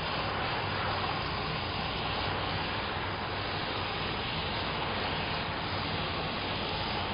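Steam mop running with a steady hiss and a faint low hum underneath.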